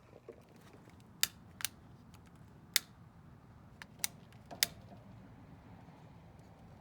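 A lighter being clicked five times at uneven intervals, trying to light a grill.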